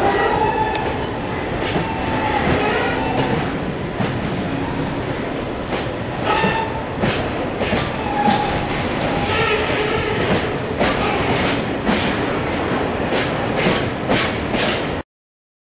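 Loaded oil tank wagons of a freight train rolling past, their wheels clacking over rail joints, with brief wheel squeals now and then. The sound cuts off abruptly near the end.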